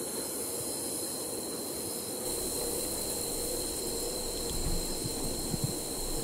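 Night insects, crickets among them, trilling in a steady chorus, with a constant high-pitched note over an even hiss. A few soft low thumps come in the second half.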